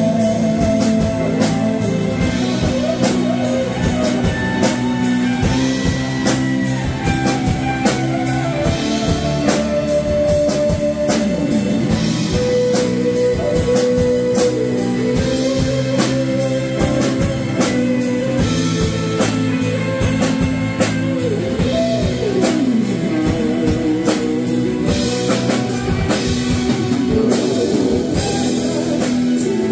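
Band playing rock-blues music without vocals: guitar lines with bent, sliding notes over a steady drum-kit beat.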